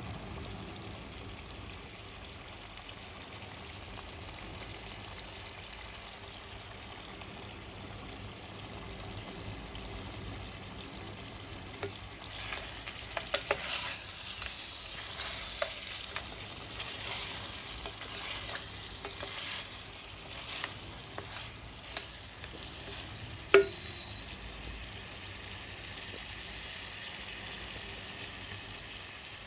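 Food sizzling as it fries in a pan, a steady hiss. In the middle a utensil stirs and clinks against the pan, ending with one sharp knock.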